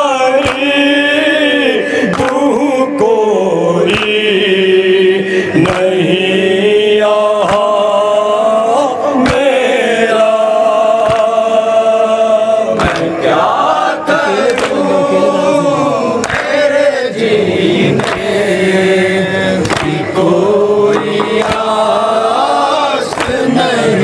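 Men chanting a noha, a Shia mourning lament: a lead reciter sings long, sliding lines that a group of men takes up. Sharp beats of hands striking chests (matam) fall every second or two.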